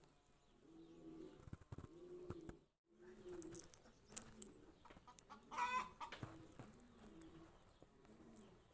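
Pigeons cooing softly and repeatedly, with one short, sharper bird call about five and a half seconds in. The sound cuts out completely for a moment near three seconds.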